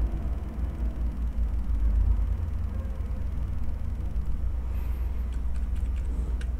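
Steady low background rumble with a faint hum, and a few faint clicks about five seconds in.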